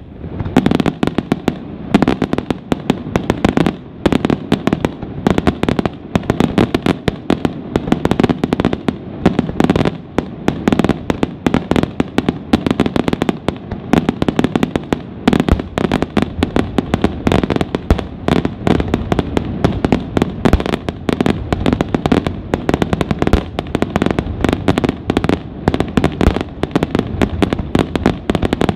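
Aerial fireworks display in a dense, unbroken barrage of shell bursts: many sharp bangs each second, with crackling between them and no pause.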